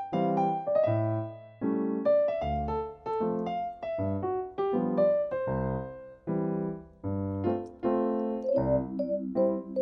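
Background piano music: a melody of struck notes over chords, with no other sound above it.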